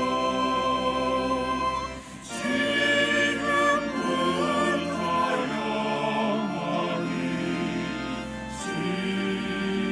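Choir singing a slow sacred piece in sustained phrases over steady held low notes, with a brief break between phrases about two seconds in.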